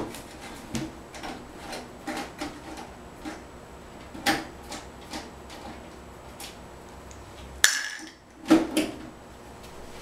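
Handling of a PC case's side panel: small metallic clicks as the black thumb screws come out, a sharper knock about four seconds in, then the panel scrapes briefly as it slides off near the end and clatters a couple of times as it is set down.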